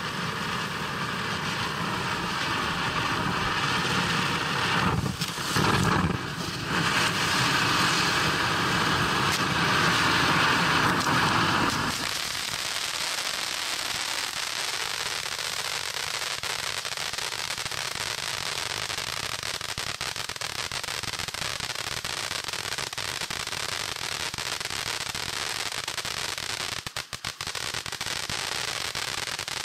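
A Liberty 500-gram fireworks fountain burning: a loud, steady hissing rush of sparks for about the first twelve seconds, then an abrupt change to a quieter, even crackling, the fountain's crackle finish.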